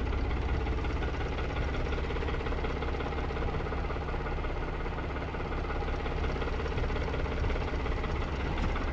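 2006 New Holland tractor's diesel engine idling steadily.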